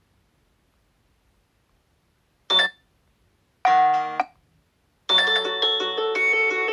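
Oppo A16 phone tones: after a silent stretch, two short chime notes sound about a second apart, the first short and high, the second lower and ringing. A little past halfway a longer melodic ringtone begins and keeps playing.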